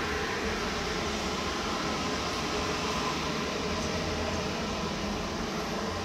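Steady background machine hum and hiss, unchanging, with no distinct knocks or events.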